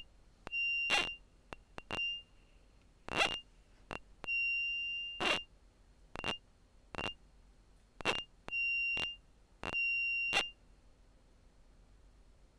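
Sharp clicks and transients alternating with a high, steady tonal squeak. The squeak is sometimes brief and sometimes held for about a second, in around a dozen irregular events that stop shortly before the end.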